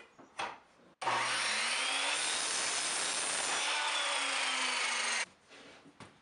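Skilsaw miter saw starting up about a second in and running for about four seconds as its blade is brought down through a thin wooden strip, then stopping abruptly. A few small knocks of wood being handled come before it.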